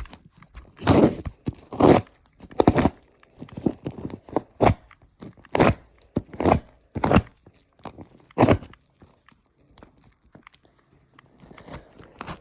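A cardboard shipping box being handled and opened: a string of irregular thuds, scrapes and crinkles, some sharp and some drawn out over a fraction of a second.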